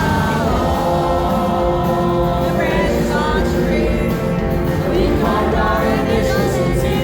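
Live rock band performing with a male lead singer, and many voices in the crowd singing along loudly.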